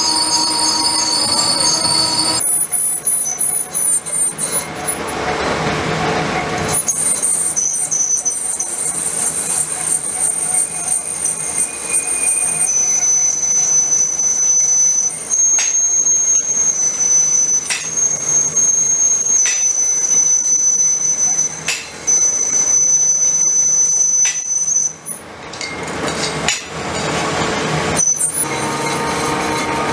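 Metal lathe turning a forged steel flange: the cutting tool shearing the steel gives a steady high-pitched squealing whine over the machine's running noise, with a few sharp clicks.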